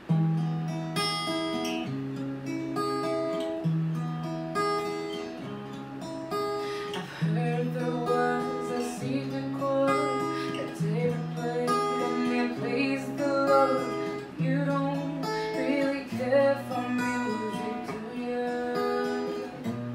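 Acoustic guitar playing a slow chord accompaniment, a new bass note about every one and a half seconds. About seven seconds in, a woman's voice joins, singing a melody over it.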